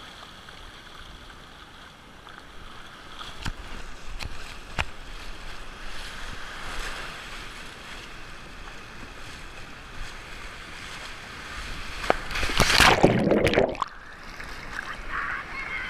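Sea surf washing and sloshing right at the microphone, with a few sharp knocks a few seconds in. A louder rush of water comes about twelve seconds in and lasts over a second.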